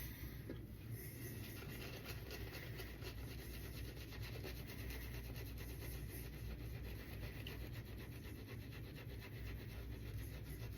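Shaving brush with a hybrid synthetic-and-badger knot being worked rapidly through wet shaving-soap lather: a steady, fine, scratchy rubbing.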